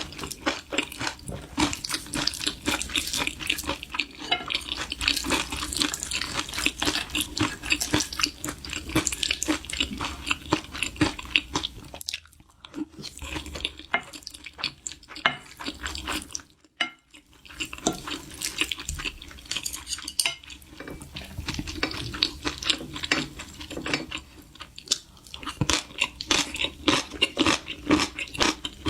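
Eating sounds: chewing, with utensils clicking against dishes in a dense run of short clicks. There are two brief breaks, about twelve and about seventeen seconds in.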